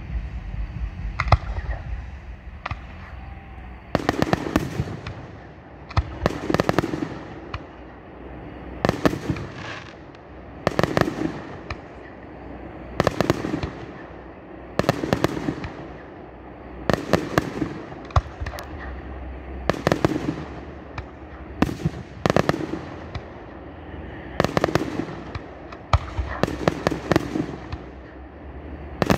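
Aerial firework shells going off in a steady sequence, a sharp bang about every two seconds, each trailing off briefly, starting about four seconds in. A low rumble fills the first few seconds.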